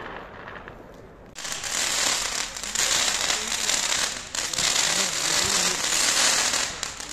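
Ground firework fountain sending up a column of sparks: it starts suddenly about a second and a half in with a loud, continuous hissing crackle.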